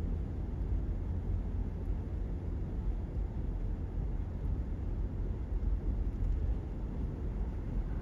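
Steady low rumble of road and tyre noise inside a car cruising at highway speed.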